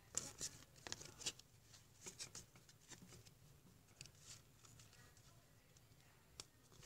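Faint slides and ticks of 2020 Series 2 baseball trading cards being moved one by one through a stack by hand, irregular and mostly in the first few seconds.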